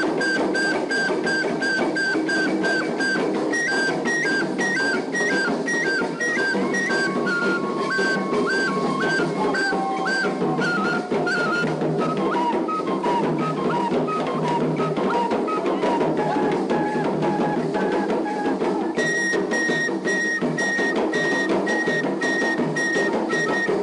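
Traditional Dagomba drum ensemble playing a fast dance rhythm, with high piping notes repeated about three times a second over the drums and a long held high note over the last few seconds.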